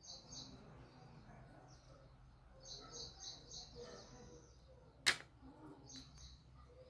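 Faint chirping of small birds in short repeated runs, with one sharp click about five seconds in.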